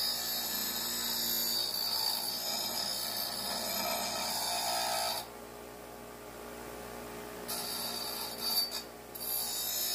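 Bench grinder wheel grinding rust off a piece of cut steel plate: a steady hissing grind for about five seconds, then only the motor spinning for a couple of seconds, then grinding again in short passes near the end.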